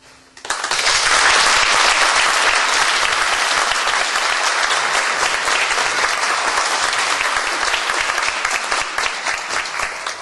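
Audience applause, breaking out about half a second in and continuing as a dense, steady clapping.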